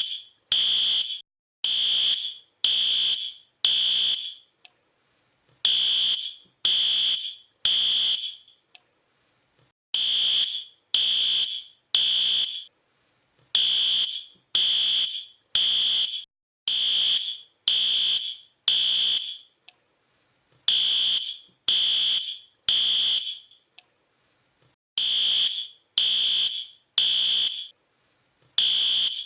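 Fire alarm sounding: a high, piercing beep about once a second, mostly in groups of three with short pauses between groups, the temporal-three evacuation pattern.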